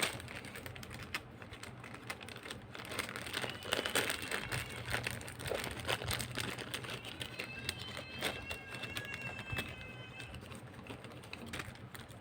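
Handling of a small plastic gadget and its packaging: dense irregular clicks, taps and crinkling. A faint, drawn-out high call sounds for about two seconds near eight seconds in.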